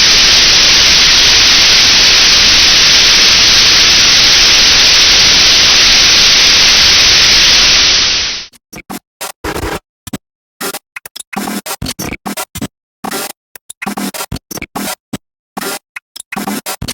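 Space-sound track of the kind presented as the sound of a trans-Neptunian object: a loud, steady static-like hiss that stops abruptly about eight and a half seconds in, then breaks into choppy, irregular bursts of noise stuttering on and off.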